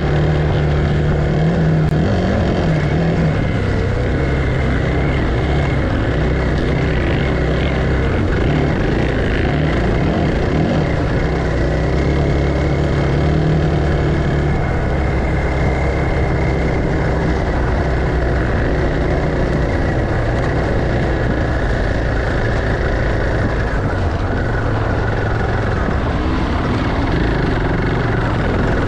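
An engine running steadily at a fairly constant speed, a continuous loud drone.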